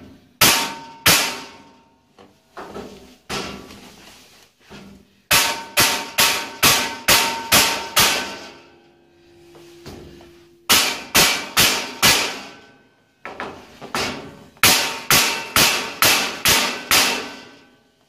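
Hammer blows knocking a steel shelf panel down into a steel box-section rack frame, struck in fast runs of about three a second with short pauses between. The metal frame rings after the blows. The panel is a tight fit that is not going down.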